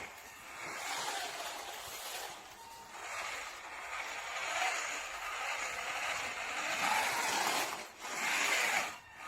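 Toy RC monster truck's small electric motor and plastic gears whirring as it is driven, swelling and easing off several times.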